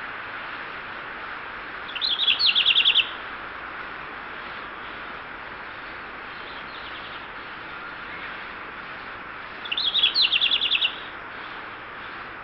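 A wild songbird singing two short phrases, each a quick opening note followed by a fast trill of about eight notes lasting about a second, the second phrase about eight seconds after the first, over a steady background hiss.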